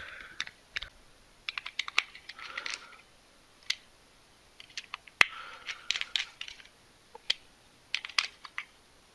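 Small screwdriver driving the belt-clip screws into the plastic back of a Baofeng UV-5R handheld radio. Scattered light clicks, with a few short scratchy turns of the bit.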